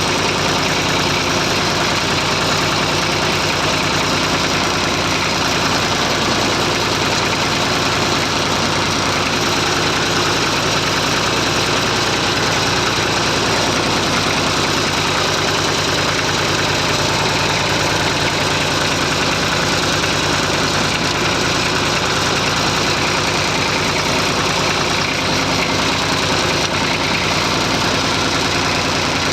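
Massey Ferguson 35 tractor engine running steadily while pulling a plough.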